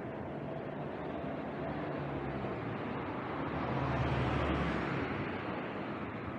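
A motor vehicle passing close by on the street: its low engine hum and road noise build to a peak about four seconds in, then fade.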